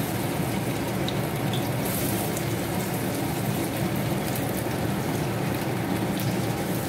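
Battered bread slices frying on a hot flat tawa over a gas stove: a steady, even sizzling rush, with a few light clicks of the spatula as the slices are turned.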